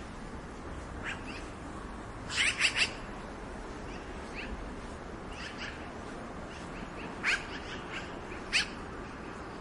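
Black-billed magpie giving short calls: a quick run of three loud calls about two seconds in, fainter single calls between, and two more loud single calls near the end.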